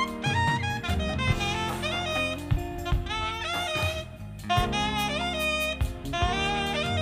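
Live funk band playing an instrumental passage: a saxophone solos in quick runs of bending notes over bass, keys and drum kit.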